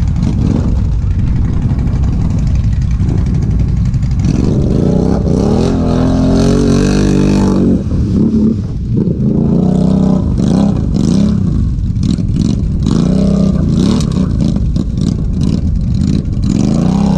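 ATV engine revving over and over, its pitch climbing and dropping with each burst of throttle, over a steady low rumble.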